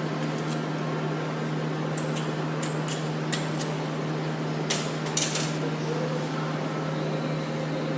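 Light metallic clicks and clinks, several in quick succession in the middle, from metal being handled, over a steady low hum.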